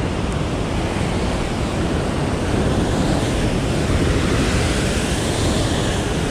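Ocean surf breaking against a sandstone rock ledge: a continuous rush of churning whitewater that swells a little about three seconds in.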